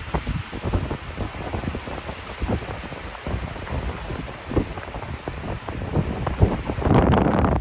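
Wind buffeting a phone's microphone in irregular gusts, over the wash of small waves breaking on a sandy shore. The buffeting grows louder near the end.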